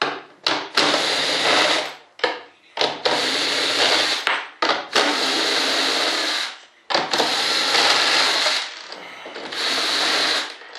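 Cordless drill running in about half a dozen runs of one to two seconds with short pauses and quick blips between, backing out the screws that hold the wing mold together so it can be opened.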